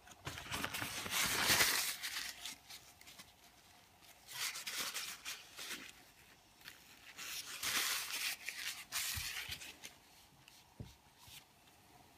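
Paper tissue rubbing and crinkling against the brass cylinder of a small toy steam engine as it is wiped, in three irregular bursts with a few light knocks between.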